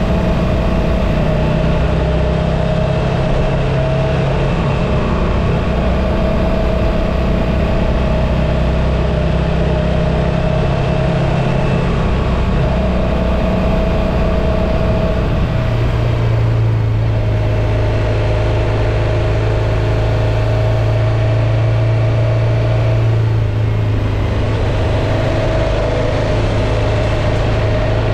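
Motorcycle engine running steadily on the road; about halfway through the engine note changes and then holds steady.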